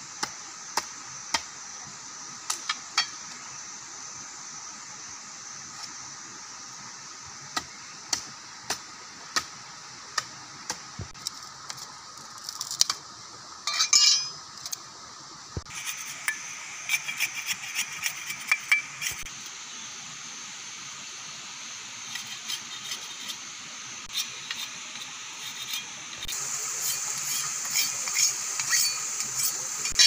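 Irregular sharp knocks and taps of a heavy chopping knife striking and splitting a bamboo stick, some blows landing on stone beneath, over a steady background hiss.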